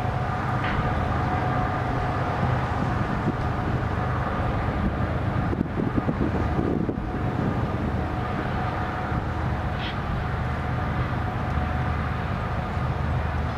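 Distant diesel locomotives of an approaching coal train: a steady low rumble with a faint steady whine above it.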